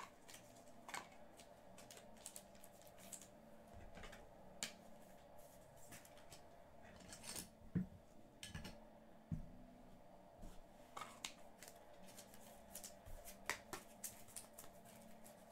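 Hands handling trading cards and hard plastic card holders: faint, scattered clicks and rustles over a low steady hum.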